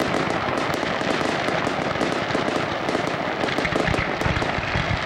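Aerial fireworks display: a dense, unbroken crackle of many rapid pops and bangs as shells burst overhead.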